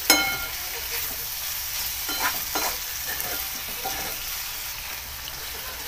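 Metal ladle stirring val (field bean) pods frying in oil in a metal kadhai, cooked dry with no water: a steady sizzle, a sharp ringing clink of the ladle on the pan at the start, and a few scraping strokes about two seconds in.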